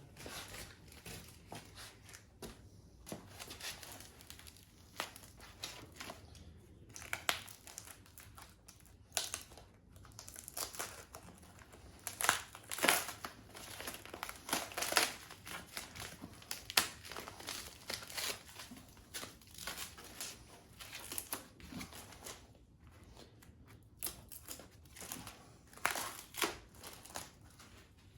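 Plastic shrink wrap and masking tape crinkling and tearing as a fiberglass seat base is worked off its foam buck, in irregular rustles and crackles that are busiest about halfway through.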